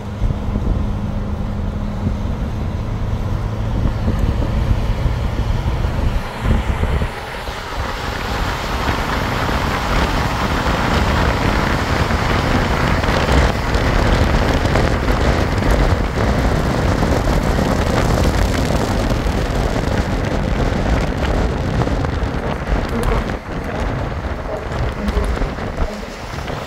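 Road and wind noise from a car driving at speed along a highway, a steady rush that grows louder and brighter from about eight seconds in.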